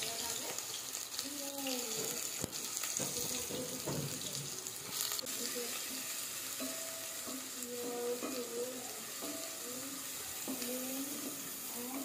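Sliced onions sizzling as they fry in a pot, stirred with a wooden spatula.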